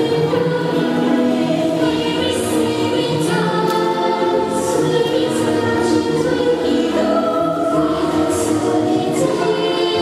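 Recorded choral music: a choir singing sustained, layered chords.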